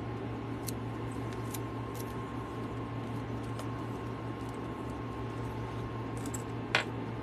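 Faint clicks and light handling noise from a purse's strap and metal clasp being handled, with one sharper click near the end, over a steady low hum.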